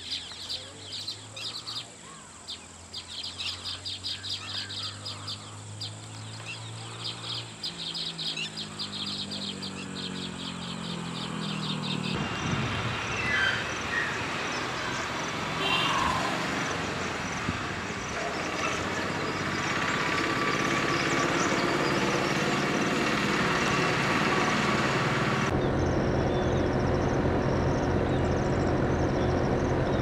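Outdoor ambience: small birds chirping, with a fast, buzzy repeated call, over the low hum of an engine rising and falling like a passing vehicle. Partway through, the hiss grows louder with a few more chirps, and near the end a steady low engine drone sets in.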